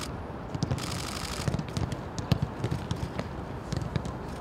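Irregular thuds and sharp clicks of a football being kicked and touched on a grass pitch.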